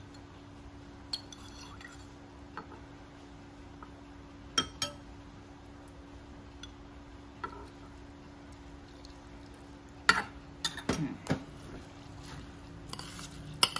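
Metal spoon clinking and scraping against a stainless steel bowl while stirring soaked glutinous rice. There are a few scattered clinks, then a quicker run of clinks and scrapes about ten seconds in, over a faint steady hum.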